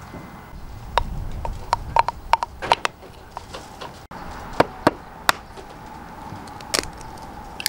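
Scattered light clicks and taps of a metal utensil and a small cast-iron skillet on a wooden tabletop while pancake batter is poured and smoothed in a paper liner, with a cluster of sharp ticks about one to three seconds in and a few more later.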